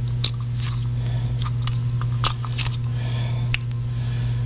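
Small, sharp plastic clicks and handling noises as the rotary selector switch of a Petzl e+LITE headlamp is turned to switch its LEDs on, scattered irregularly over a steady low hum.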